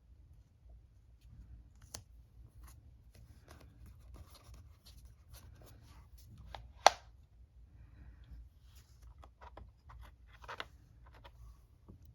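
Soft scratching of a paintbrush or pen on paper, with light taps and small clicks, and one sharp click about seven seconds in.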